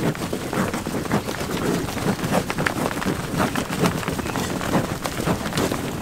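A herd of bison trotting past on bare dirt: many hoofbeats overlapping in an irregular, continuous run of thuds.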